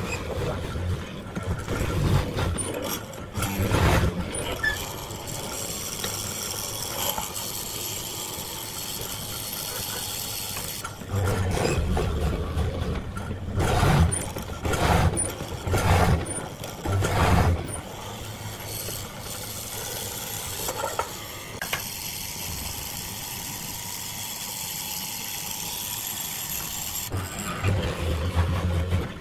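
Vertical mortising machine running steadily while its bit is plunged again and again into a wooden chair leg. Each cut is a louder burst over the motor's hum: a few early on, a quick run of them in the middle, and more near the end.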